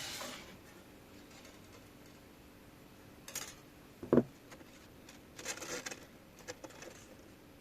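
Steel piano wire being handled and cut with side cutters: light rubbing and small clicks, with one sharp snap about four seconds in as the cutters go through the wire.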